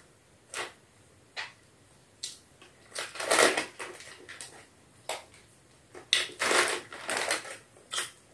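Crackling and crinkling of a plastic snack packet being handled, in irregular bursts with sharp single crackles between, loudest about three seconds in and again between six and seven seconds in.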